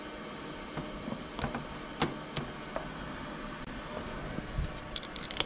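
Scattered light clicks and knocks as plastic growing trays are handled on wire shelving, over a steady background hiss.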